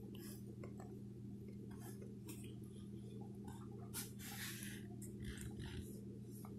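Toddler eating from a plastic bowl with a plastic spoon: faint scattered clicks and soft mouth sounds over a steady low hum.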